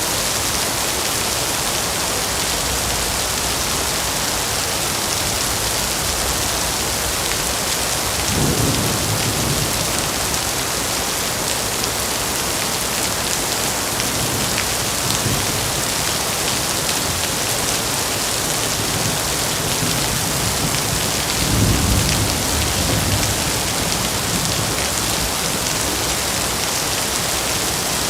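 Heavy rain falling steadily, a dense even hiss, with a few low rumbles swelling up for a second or two, about 8 seconds in and again about two-thirds of the way through.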